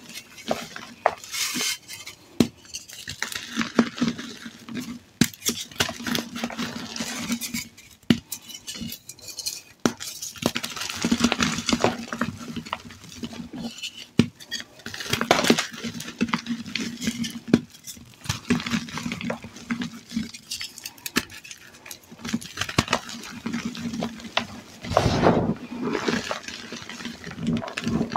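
Hands crushing and squeezing crumbly reformed gym chalk mixed with glitter: dense crunching and crackling with a powdery hiss, coming in repeated squeezes every second or two.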